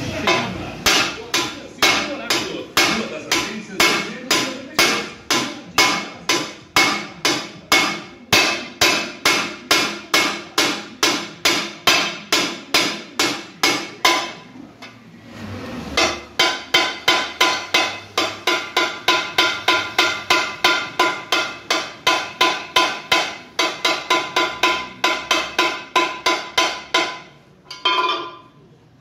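Hammer blows on a dented steel wheel rim, about three a second, each a sharp ringing clang, in two long runs with a short pause about halfway: the dent in the rim is being knocked back into shape.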